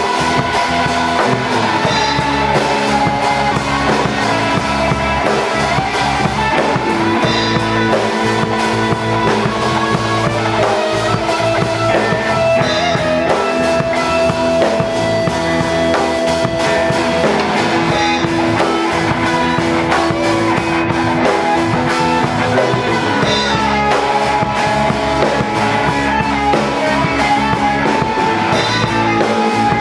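Rock band playing live: drum kit, electric bass and two electric guitars together, loud and steady.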